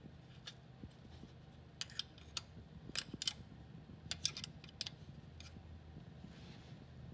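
Light metallic clicks and clinks, in scattered clusters, as a crankshaft locking tool and its bolt are fitted by hand to the crank sprocket while the timing belt is being set. A low steady hum runs underneath.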